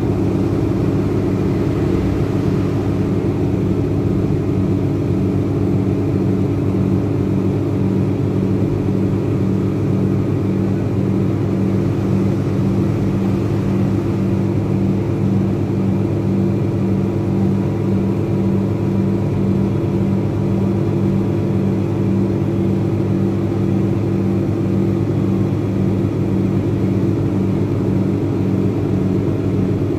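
Rear-mounted Cummins ISBe 185 inline-six diesel of a Materfer BU1115LE city bus running steadily, heard from inside the passenger cabin as a low drone with a slight regular throb.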